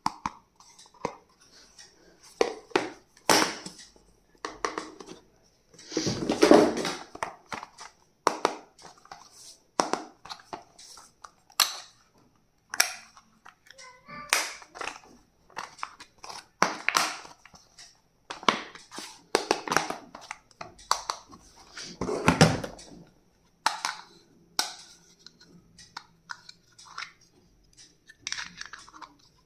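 Packaging being handled and unwrapped by hand: irregular crackling and rustling, with the longest, loudest crinkles about six seconds in and again past twenty seconds.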